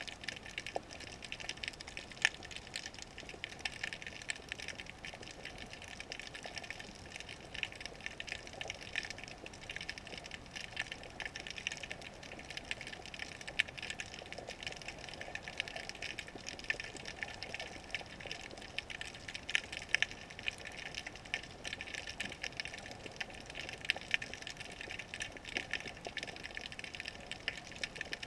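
Underwater sound heard through a GoPro's waterproof housing: a steady, dense crackle of fine irregular clicks over a muffled wash of water.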